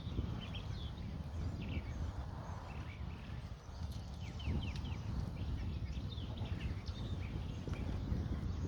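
Wind buffeting the microphone in a low, uneven rumble, with small birds chirping in short calls throughout.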